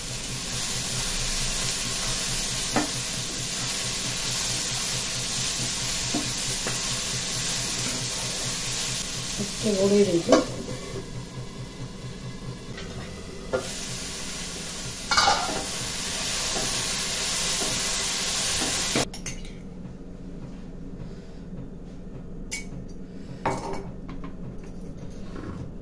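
Sprouted moong and chana sizzling as they stir-fry in a frying pan, with a spatula stirring and a few clanks of pan and lid, one a short ringing clatter about ten seconds in. About three-quarters of the way through the sizzle cuts off abruptly, leaving only a few light knocks.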